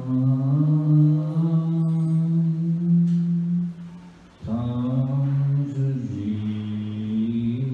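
A man's voice chanting a devotional mantra in long held notes that step between pitches, with a short breath pause about four seconds in before the next line.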